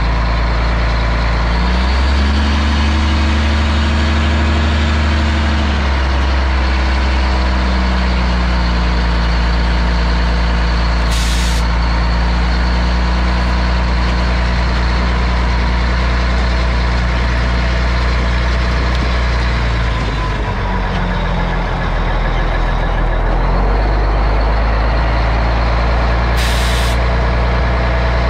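1988 Mack CF fire truck's diesel engine running under way. Its note steps up about two seconds in, drops back around six seconds, dips again around twenty seconds and picks up about four seconds later, as it changes speed. Two short hisses of air from the truck's air system come about eleven seconds in and near the end.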